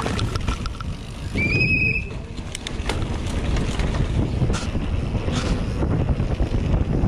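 Wind buffeting the microphone on a fast mountain bike descent, with tyres rolling over concrete and the bike rattling over bumps in scattered sharp clicks. A brief high squeal sounds about one and a half seconds in.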